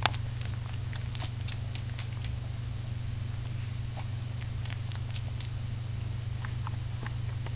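Westie puppy suckling at its mother: soft wet smacking clicks in scattered clusters, over a steady low hum.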